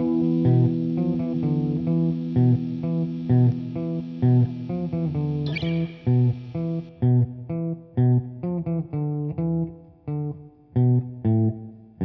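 Background instrumental music with guitar and bass. About halfway through, the notes become sparser and more spaced out.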